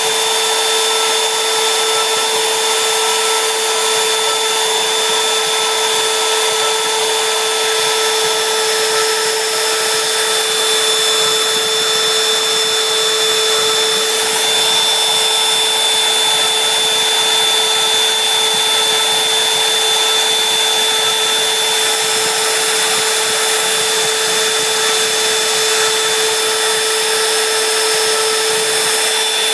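Fireball V90 CNC router's spindle running steadily with a constant high whine as its fine bit drills a copper-clad circuit board.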